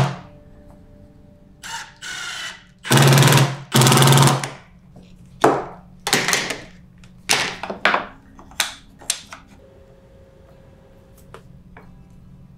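Cordless drill-driver spinning screws into plywood in short bursts, two of them about a second apart some three seconds in. After that comes a string of sharp knocks and taps of plywood pieces being handled and set down.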